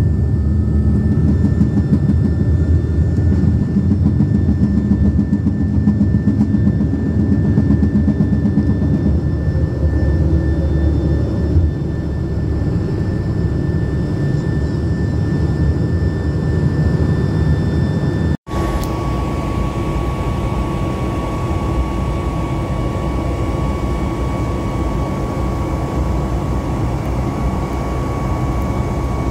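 Jet airliner engines running, a steady loud rumble with a thin whine over it; about two-thirds of the way through it cuts abruptly to another stretch of the same steady engine noise with a different whine.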